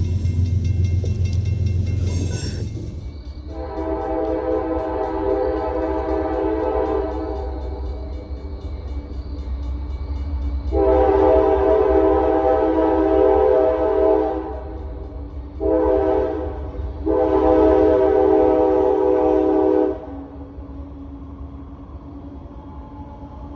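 CSX freight locomotive's air horn sounding the grade-crossing signal, long, long, short, long, over the steady low rumble of the diesel locomotives.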